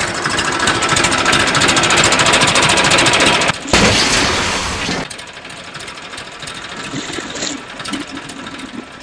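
A home-made toy tractor running with a rapid, rattling, engine-like chatter. It is loud for the first few seconds, breaks off briefly about three and a half seconds in, comes back loud, then drops much quieter after about five seconds.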